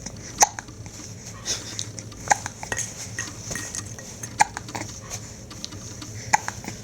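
A baby of about seven weeks hiccuping: four sharp hiccups roughly two seconds apart, with fainter little clicks between them.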